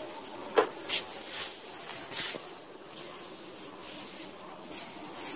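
Dry straw rustling and crackling as it is handled, with a few sharp knocks along the way.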